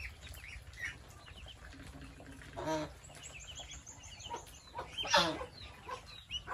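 Ducklings peeping in short, high cheeps, with a quick run of peeps just past halfway. A louder, lower call from an adult bird in the pen breaks in twice, a little before halfway and again near the end.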